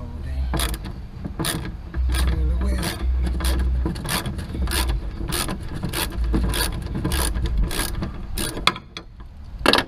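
Hand ratchet wrench clicking in repeated short strokes, about two a second, while loosening rusted bolts, with one louder knock near the end.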